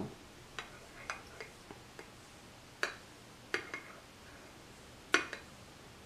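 Metal spoon clinking against a glass coffee cup while stirring: about a dozen light clinks at uneven intervals, the loudest ones near the middle and near the end.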